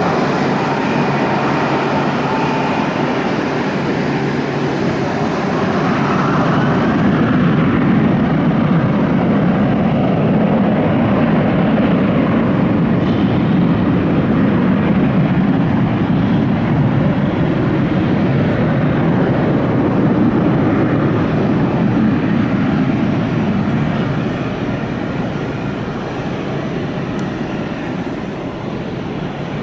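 Korean Air jet airliner taking off at takeoff thrust: a thin high engine whine in the first few seconds, then a loud, steady jet roar that swells about seven seconds in and fades over the last few seconds as the aircraft climbs away.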